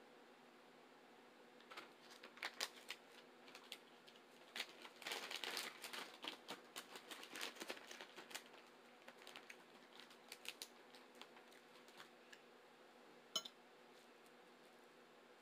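Quiet clicking and clattering of tableware: a fork tapping and scraping on a plate, busiest in the middle, then thinning to scattered clicks with one sharp click near the end.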